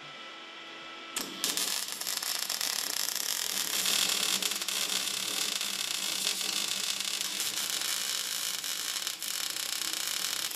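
MIG welding arc crackling steadily. It starts about a second in, after a quiet hum.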